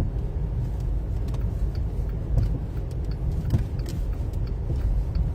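Car in slow traffic, heard from inside the cabin: a steady low engine and road rumble, with a few light clicks and knocks.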